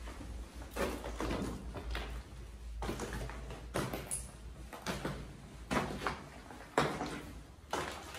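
Slow, careful footsteps, about one a second, climbing up a bunker.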